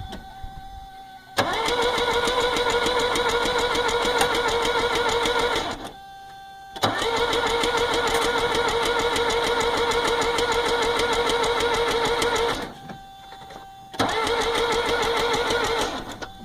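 1982 Mercedes 240D's four-cylinder OM616 diesel cranked on its starter three times, for about four, six and two seconds, turning over fast and evenly but never catching: a crank, no-start that the owner puts down to the engine not building compression, possibly a valve adjustment or jumped timing. A faint steady tone sounds in the pauses between the cranks.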